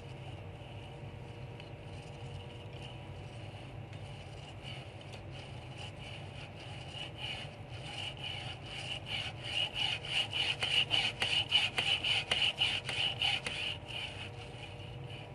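Rhythmic rasping scrape of the twisted-chain water pump's chain turning, about three strokes a second, growing louder towards the middle and then fading away, over a faint steady hum.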